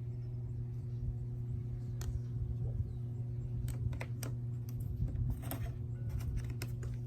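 Scattered clicks and taps of a Hoover SteamVac carpet cleaner's plastic parts being handled and fitted back into the housing, coming more often in the second half, over a steady low hum.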